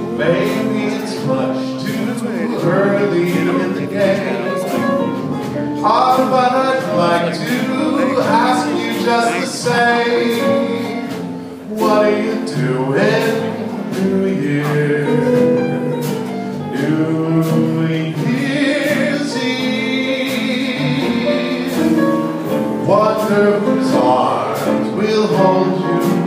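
Music with singing, a man's voice leading over instrumental accompaniment.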